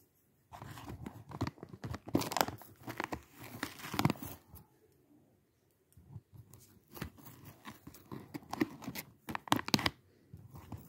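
Dry long-grain basmati rice rustling and crunching as a metal spoon digs and stirs through it in its bag, with the bag crinkling. Two spells of irregular rustling, with a short lull about halfway through.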